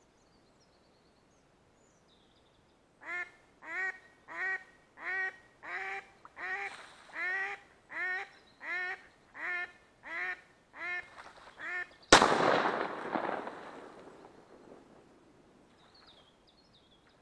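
A duck quacking in a steady run of about thirteen quacks, each dipping slightly in pitch, about one and a half per second. About twelve seconds in comes a single shotgun shot, the loudest sound, whose tail fades over about two seconds.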